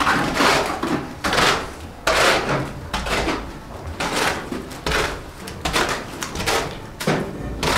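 A hoe scraping and dragging through wet mortar mix on a concrete floor, in repeated strokes a little more than one a second as the mortar is mixed by hand.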